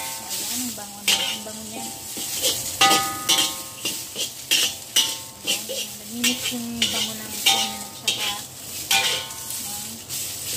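Metal ladle repeatedly scraping and clanking against a black wok while stir-frying sliced ginger and scallions in hot peanut oil. Some strikes leave a short metallic ring, over a steady sizzle.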